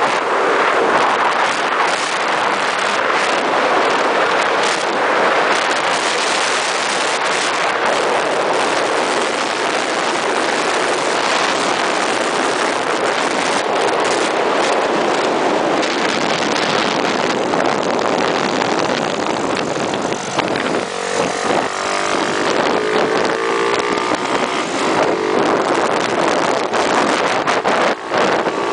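Scooter riding at speed, its engine running under a steady rush of wind on the microphone. Late on the wind eases a little and the engine's note comes through, rising and falling in pitch.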